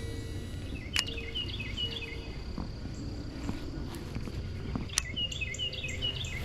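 A songbird singing a quick phrase of short, high, repeated notes, twice about four seconds apart. Three short, low, steady hoots sound in the first two seconds, which the angler takes for an owl.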